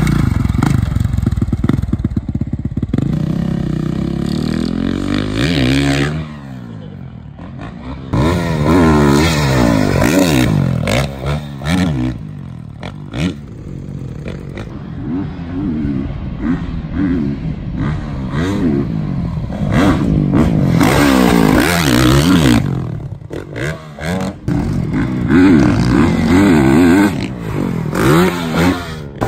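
Dirt bike engine being ridden hard around a supercross track, its revs rising and falling again and again as the throttle is opened and shut through the jumps. There is a quieter stretch about six seconds in.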